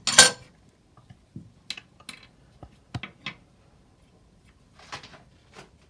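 Small plastic and metal parts of a mini shower bidet kit being handled while unpacked: a sharp clatter just at the start, then scattered light clicks and knocks and a short scrape about five seconds in.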